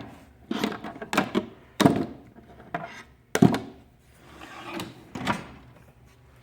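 Hand tools and a steel tool chest drawer being handled: a run of sharp metallic knocks and clacks, about seven in all, spaced irregularly with brief ringing after each.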